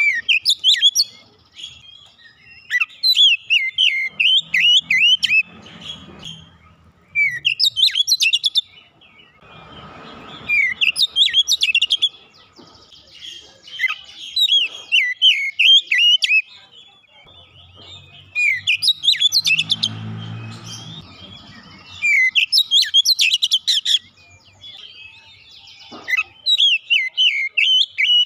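Oriental magpie-robin (kacer) song: phrases of rapid, high chirps and whistles lasting one to three seconds each, repeated with short pauses between them.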